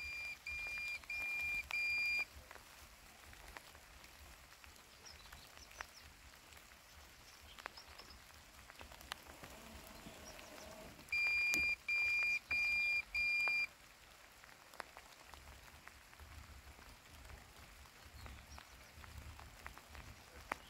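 LandXcape LX790 robotic lawn mower beeping: a set of four short, high, even beeps right at the start and another set of four about eleven seconds later. Between them there is only a faint patter of rain.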